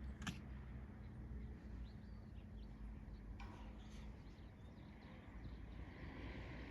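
Faint outdoor background noise with a few faint, short chirps and a sharp click just after the start.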